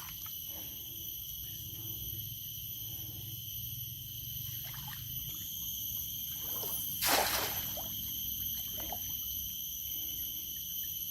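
River water trickling and splashing, with one louder splash about seven seconds in, under a steady high-pitched drone.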